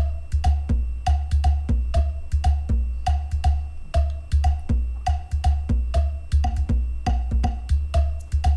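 Background music with a steady beat: wood-block-like tapping over a deep bass, and a short note repeating about twice a second.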